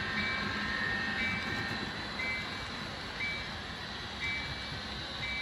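HO scale model freight train rolling past with a steady rumble of its cars running on the track. A short, high, two-step beep repeats about once a second.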